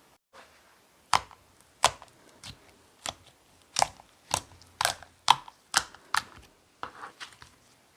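Sherbet-textured slime being handled, giving about a dozen sharp pops and clicks roughly two a second.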